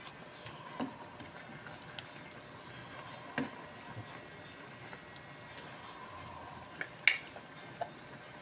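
Vegetables simmering in liquid in a pot, a steady low bubbling hiss, while a wooden spatula stirs them with a few light knocks against the pot, the sharpest about seven seconds in.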